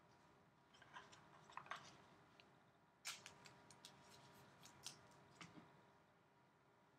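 Faint handling noise: soft clicks and rustles, then a run of sharper clicks from about three seconds in, as trading cards and their packaging are handled.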